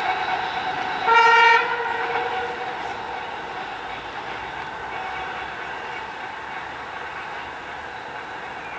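A locomotive horn gives one short, single-pitched blast about a second in. Under it runs the steady noise of approaching locomotives, a ChME3T shunting diesel and an EP20 electric hauling a passenger train.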